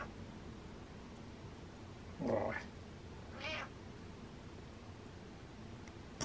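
Orange-and-white domestic cat meowing: two short meows about two and three and a half seconds in, the first louder. A brief click near the end.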